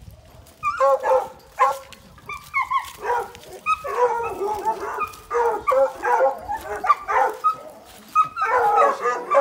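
Bluetick coonhounds in a wire kennel barking and yipping over and over, in quick strings of short calls with brief pauses between them.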